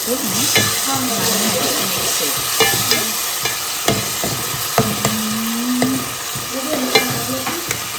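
Onions, tomatoes and shallots sizzling in coconut oil in a pan while being stirred, with a steady hiss and the spoon knocking and scraping against the pan every second or so.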